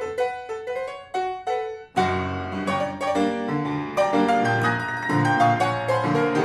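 Upright piano played solo in a blues style: a line of single treble notes, then about two seconds in a full chord with bass notes comes in and both hands carry on with a busy rhythmic passage.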